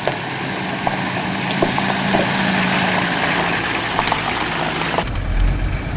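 A 4x4's engine running as it drives along a gravel track toward and past, growing steadily louder, with stones crunching and popping under the tyres. About five seconds in, a much deeper low rumble takes over.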